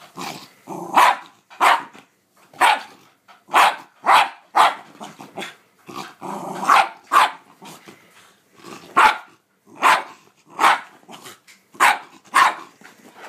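Shiba Inu barking in short, sharp, loud barks, a little more than one a second at uneven spacing, with growling in between. It is excited play-barking while the dog snaps at a hand.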